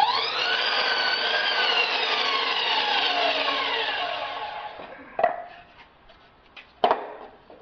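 Harbor Freight slide compound miter saw starting up with a quickly rising whine, cutting through a wooden board, then winding down with falling pitch as the blade coasts to a stop. Two sharp knocks follow about five and seven seconds in.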